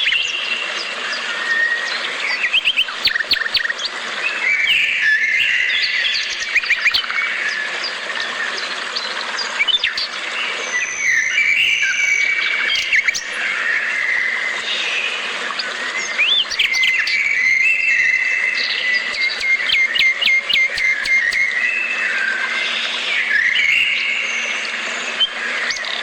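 Several songbirds chirping and whistling at once, a dense, unbroken chorus of short calls and trills.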